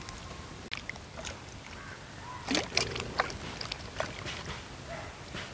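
Hands sloshing peeled raw plantains around in a steel bowl of water to wash them, with irregular splashes that are busiest about halfway through.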